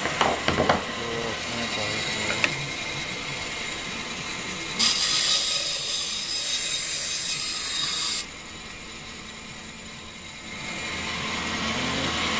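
Oliver 117-A bandsaw running on a variable frequency drive, a steady hum with a thin high whine, with a few clicks in the first second. About five seconds in, the blade cuts through a board for about three seconds with a loud hissing rasp that stops abruptly as the cut ends, leaving the quieter sound of the saw running.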